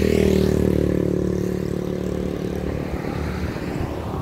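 A motor vehicle's engine passing by, loudest in the first second and then fading away.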